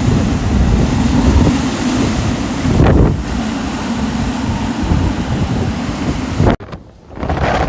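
Strong storm wind buffeting the microphone: a loud, rough rush over a steady low hum. It cuts off abruptly about a second before the end and gives way to quieter wind.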